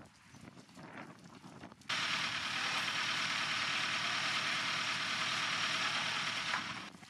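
Loud, steady hiss of water jets spraying against the barnacle-encrusted steel hull of a submarine. It starts abruptly about two seconds in and stops shortly before the end.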